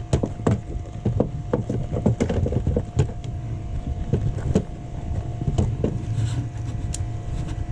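Irregular knocks and clicks of handling on a fishing boat's deck, a couple each second, over the steady hum of the boat's engine.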